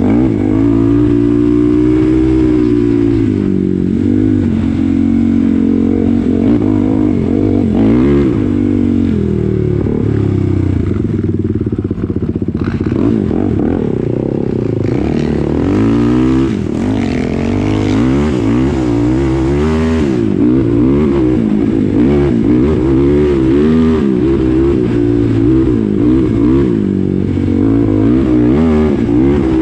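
Kawasaki KFX quad's engine under way on a dirt trail, revving up and down over and over as the throttle opens and closes. The pitch swings come quicker and more often in the second half.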